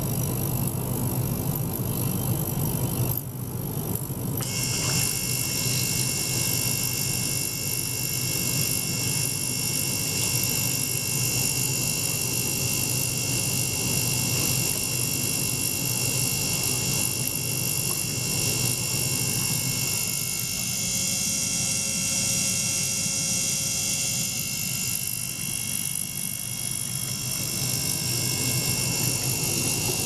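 Small DC motor pump running steadily, circulating water through tubing, with a low hum. About four seconds in, after a brief dip, several steady high-pitched tones join and continue.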